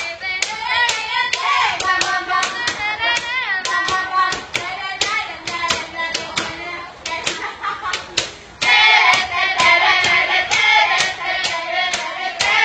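Steady rhythmic hand clapping, about two claps a second, over pop music with singing voices; everything gets louder about nine seconds in.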